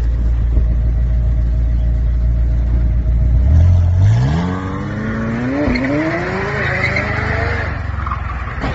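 McLaren 720S's twin-turbo V8 rumbling low, then accelerating hard about three and a half seconds in, its pitch climbing steadily with a brief dip. Tyres squeal near the end as the rear breaks loose and the car slides sideways.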